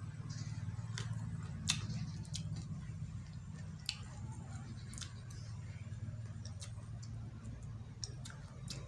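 A person chewing crunchy food with the mouth closed: scattered sharp crunches and clicks, roughly one a second, over a steady low hum.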